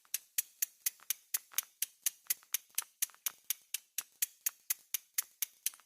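Steady clock-like ticking, about four sharp ticks a second, with nothing else behind it.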